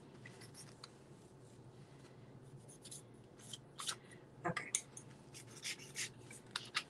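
Scattered short scratching and clicking sounds of art supplies and paper being handled on a work table, sparse at first and busier in the second half.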